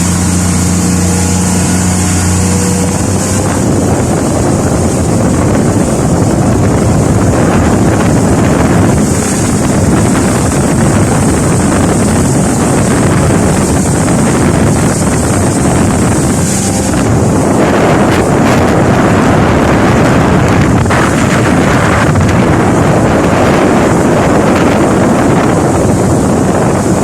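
Motorboat under way: a steady engine hum for the first few seconds, then a loud, even rush of wind on the microphone and water spray that covers the engine.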